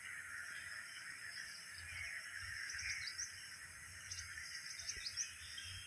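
Several quick, high bird chirps about three to five seconds in, over a steady high hiss of outdoor background. No calls from the elephants are heard.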